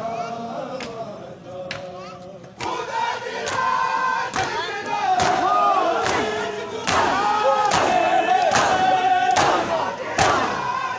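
A crowd of men chanting a mourning noha together; about two and a half seconds in it turns loud, with many hands striking bare chests in matam together, a little faster than once a second, and the crowd shouting the chant on the beats.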